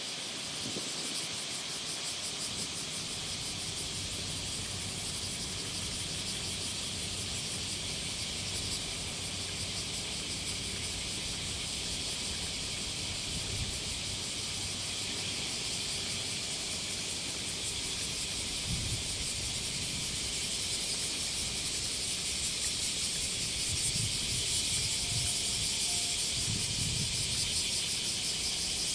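A dense, steady chorus of buzzing insects, over the low rumble of a 2000-series diesel express train's engines pulling slowly away, the rumble swelling briefly a few times in the second half.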